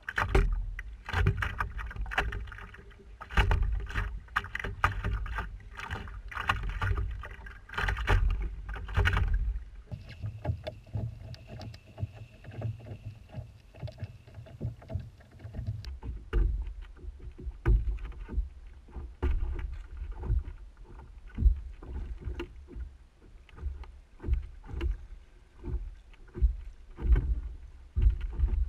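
Canoe being paddled: irregular paddle strokes splashing and dripping in the water, with knocks against the hull. The first nine seconds or so are louder and busier, dense with knocks and low rumble; after that the strokes are quieter and more spaced.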